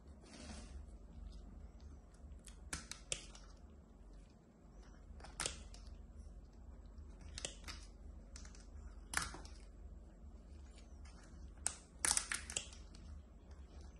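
Scattered sharp clicks and crackles from a gloved hand handling a crusty, layered mass, one every second or two. Near the end comes a quick run of several louder clicks as metal tin snips come in.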